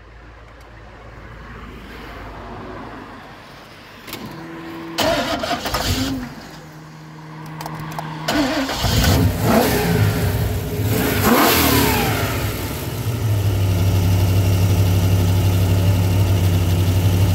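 Carburetted V8 engine revved several times, its pitch falling back after each rev, then settling into a steady idle for the last few seconds.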